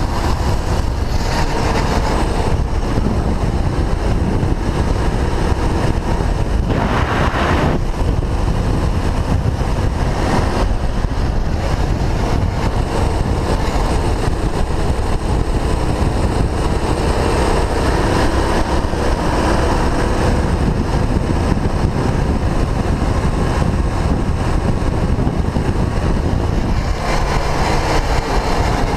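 Go-kart engine running at racing speed, recorded from a camera on the kart. The engine note rises and falls through the corners under heavy wind rush on the microphone.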